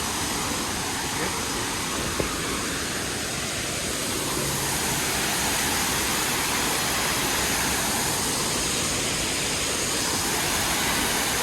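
Waterfall rushing close by: a steady, even rush of falling water that does not change.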